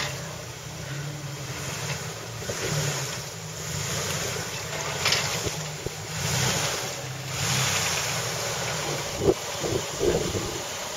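Jeep Wrangler TJ's engine running steadily at low revs as it crawls through mud ruts, with wind buffeting the microphone in swells.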